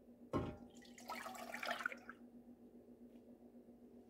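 Milk poured from a glass measuring cup into a nonstick saucepan: a short sudden splash about a third of a second in, then about a second of pouring that stops about two seconds in.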